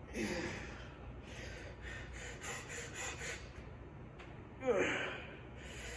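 A man breathing hard, with two loud gasping exhales that fall in pitch, one at the start and one near the end, and softer breaths between.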